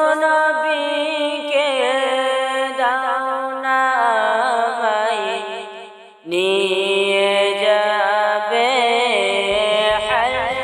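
A naat: one voice chanting an Islamic devotional melody with ornamented, wavering runs. It falls away briefly just before six seconds in, then starts a new phrase.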